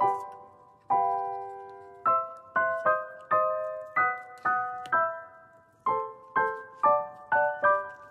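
Background piano music: a slow, gentle melody of single struck notes, each ringing and fading before the next.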